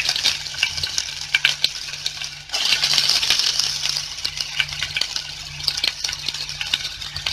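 Freshly added chopped onions sizzling in hot oil in a stainless steel pot, a steady hiss full of small sharp crackles and pops. The hiss dips briefly about two and a half seconds in, then picks up again.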